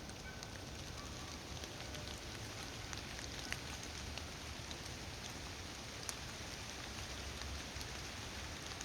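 Steady hiss-like outdoor background noise with a few scattered faint ticks.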